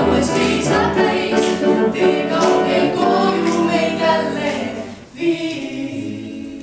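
A mixed vocal quartet of two women and two men singing a cappella in close harmony. About five seconds in the singing breaks off, a last short phrase follows, and it fades away.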